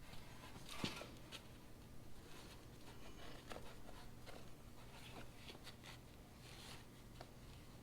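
Faint scattered clicks and light scraping of hands and tools working a V-belt onto the tractor's fan and engine pulleys, the belt resisting going on, over a low steady hum.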